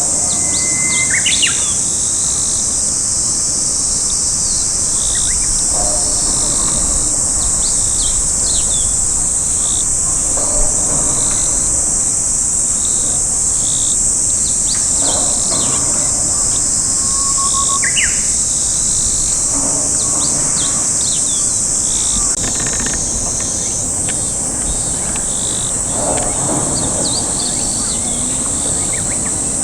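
A steady, high-pitched drone of insects runs through, with small birds chirping and whistling now and then. An oriental turtle dove's low cooing phrase comes about five times, spaced several seconds apart.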